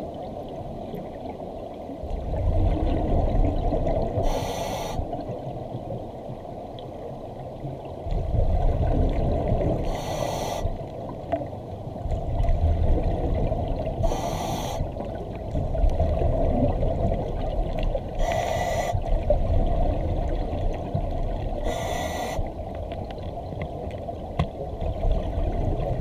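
Underwater breathing through a diver's double-hose scuba regulator. A short hiss of breath comes about every four seconds, and a low bubbling rumble fills the seconds between the breaths.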